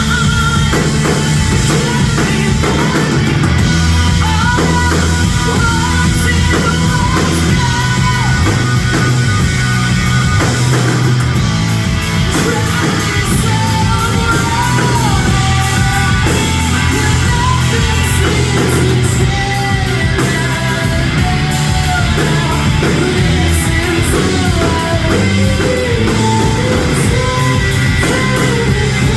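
Rock band playing loud and live: drum kit, distorted electric guitars and bass, with singing over the top.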